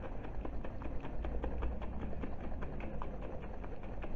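A glass jar of onion juice and sugar being shaken by hand to mix it: a rapid, irregular run of light clicks and taps over a low handling rumble.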